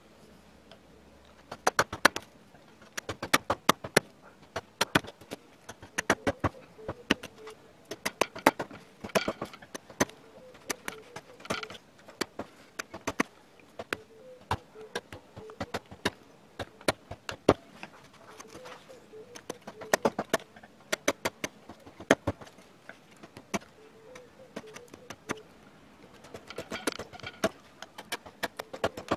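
A #5 sweep, 27 mm carving gouge pushed by hand through wood, cutting and popping off chips in quick, irregular sharp clicks that begin about a second and a half in.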